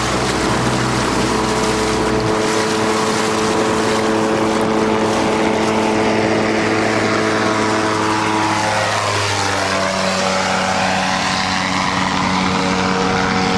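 Xenon gyroplane on floats flying past low: its engine and propeller drone drops in pitch as it passes, about nine seconds in. A lower hum cuts out about two seconds in.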